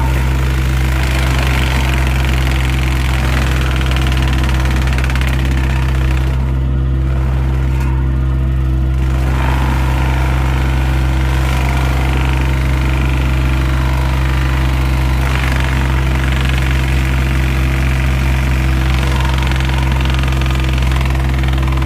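Heavy equipment's engine running steadily at constant speed, a low hum with a steady knock underneath.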